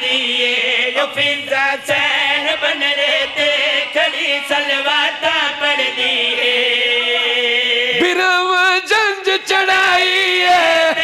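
Men's voices singing a Punjabi devotional qaseeda refrain together into microphones, with long held, ornamented notes. The melody shifts to a new phrase about eight seconds in.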